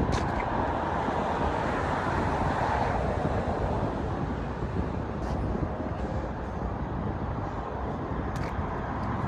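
Steady street ambience: a constant rush of road traffic.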